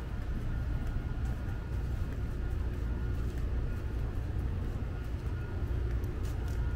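Steady low rumble of outdoor urban background noise with a faint, thin high tone, and a few light clicks about six seconds in.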